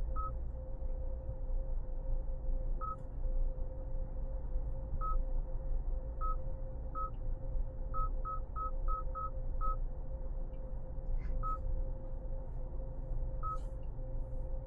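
Low rumble of a 2025 Hyundai Santa Fe driving, heard from inside the cabin, over a steady hum. Short high electronic beeps come at uneven intervals, with a quick run of six beeps about eight seconds in.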